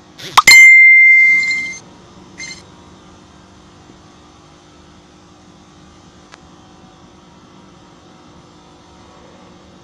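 A sharp click, then a loud electronic beep held on one steady high note for about a second, with a short second blip soon after, over a faint steady hum.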